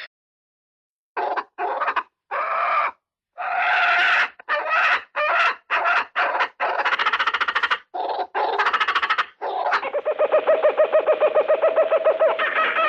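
Calls of Australian animals played one after another: a run of short, harsh pitched calls, then from about ten seconds a rapid pulsing call of about five pulses a second.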